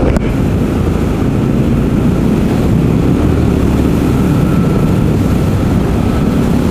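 Triumph Scrambler 1200 XE's 1200 cc parallel-twin engine running at a steady pace while riding, heard from on the bike, with a faint steady whine above it.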